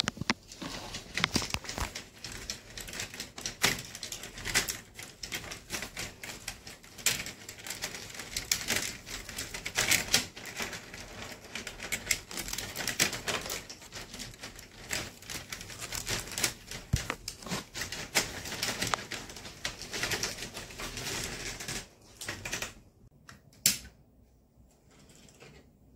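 HO-scale model train rolling along the track, with dense, irregular clicking and rattling. It stops about 22 seconds in, leaving a few scattered clicks.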